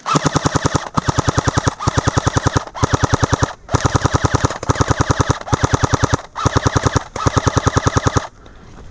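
Airsoft gun firing on full auto in about eight rapid bursts, each under a second long, with short pauses between them. The firing stops shortly before the end.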